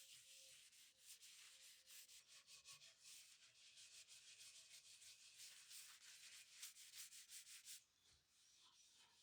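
Faint, quick rubbing strokes, one after another, stopping about eight seconds in.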